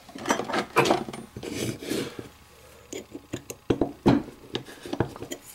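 Steel parts of a homemade single-shot rifle action being handled on a wooden board: scraping and sliding at first, then a string of sharp metal clicks and taps near the end.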